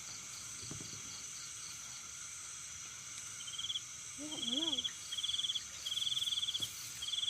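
Crickets chirping in repeated rapid pulsed trills, each under a second long, starting about three seconds in, over a steady high insect buzz. A brief wavering voice-like hum comes in the middle.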